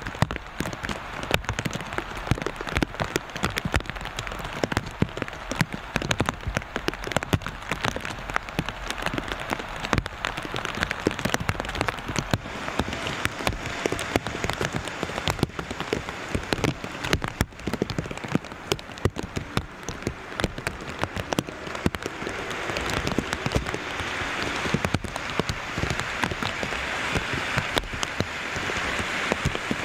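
Steady rain falling, with many sharp, close drop hits pattering on the plastic bag that covers the microphone. The rain hiss grows somewhat louder near the end.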